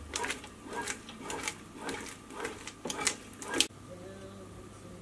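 Panasonic SD-ZX2522 bread maker kneading a ball of panettone dough with fruit and butter: uneven knocks about twice a second as the paddle turns the dough against the pan. The knocks cut off suddenly near the end, leaving a faint steady hum.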